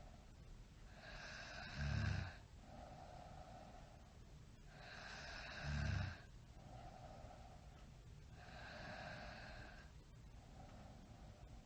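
A person snoring in slow breaths about four seconds apart: a hiss of breathing in and out, with a loud low snore on the in-breath about two seconds in and again about six seconds in, then a softer breath without the snore near the end.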